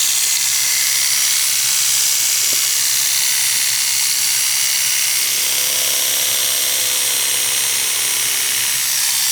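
Electric dog grooming clipper running steadily, its freshly sharpened Artero blade, rattle corrected, cutting rabbit fur in a test cut. A faint extra tone joins the buzz about halfway through.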